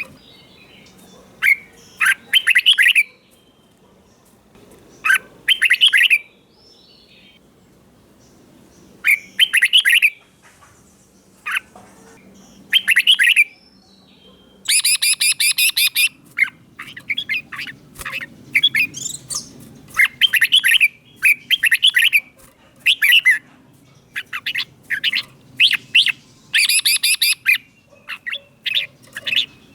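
Red-whiskered bulbul singing short, bright whistled phrases every second or few, with a longer, harsher phrase about halfway through and another near the end.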